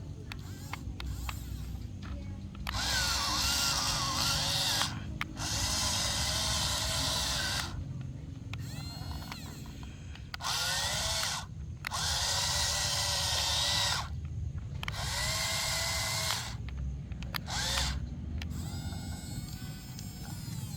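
Small electric motors and gearboxes of a toy mini excavator whining in repeated bursts of one to a few seconds, the pitch wavering within each burst as the machine moves.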